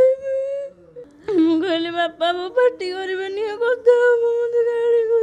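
A woman wailing in grief: long drawn-out, wavering cries, broken by a short breath about a second in, then held steady again near the end.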